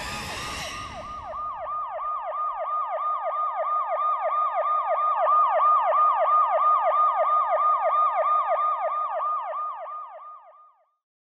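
Police siren in a fast yelp, about four sweeping cycles a second, swelling in about a second in and fading out near the end. A hiss dies away in the first second.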